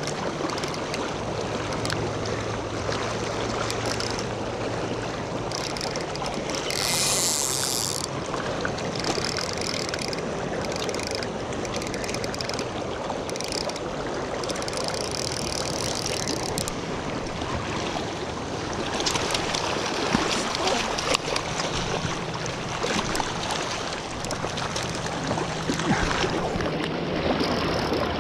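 Fast-flowing river current rushing steadily over riffles, with a brief sharper hiss about seven seconds in.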